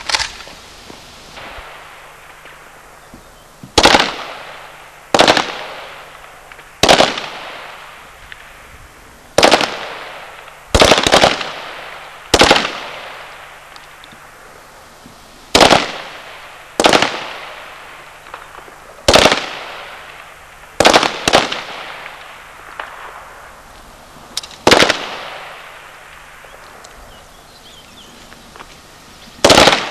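Rifle shots on an outdoor range: about fifteen single shots fired at irregular intervals, sometimes two in quick succession, each crack followed by a fading echo.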